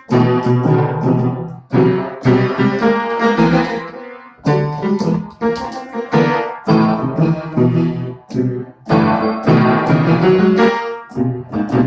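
Keyboard played with struck chords in short, repeated phrases, each ringing on briefly before a short break.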